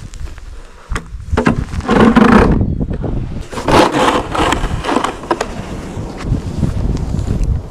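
Snow being scraped and cleared in a few irregular scraping strokes.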